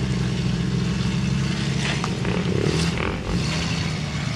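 Jeep Cherokee engine running steadily as it crawls up a rock slope, with a couple of brief sharper noises about two and three seconds in.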